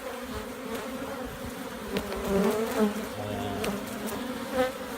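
Honeybees buzzing in a steady hum around an open hive, a colony growing testy as its frames are pulled and handled. A couple of light clicks in the middle.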